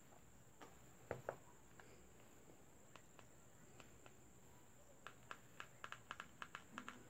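Near silence broken by faint clicks of a feature phone's keypad buttons being pressed: a couple about a second in, then a quick run of presses, about four a second, in the last two seconds as the volume is stepped up. A faint steady high tone underlies it.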